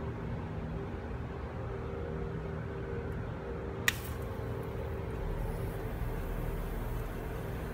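A garden misting line starts spraying about five seconds in, a faint high hiss, over a steady low background hum. A single sharp click comes about a second before the spray begins.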